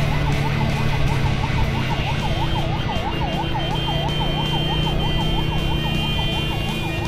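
A yelp siren sweeping quickly up and down, about three times a second, over the steady running of a Suzuki Satria F motorcycle engine and wind rush.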